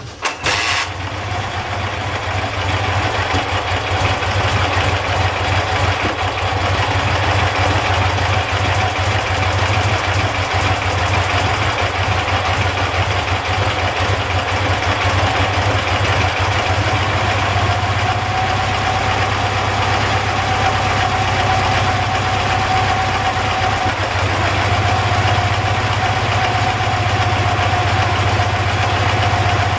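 Dnepr MT-10-36 motorcycle's flat-twin engine catching with a sharp burst in the first second, then idling steadily and loudly.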